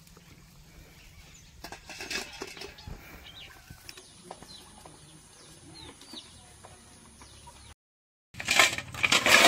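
Live snails poured into a steel bowl, their shells clattering loudly against the metal near the end. Before that, faint rustling and scattered small bird calls.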